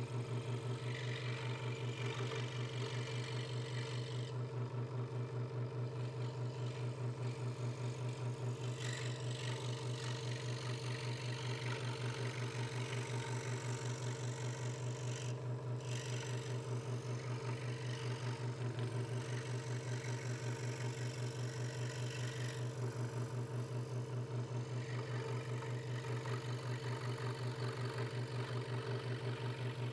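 Hegner Multicut 2S scroll saw running steadily with a fast, even pulse from its reciprocating blade, the blade sawing through thin wood to cut out letters. The cutting hiss rises and falls as the board is steered around the letter shapes.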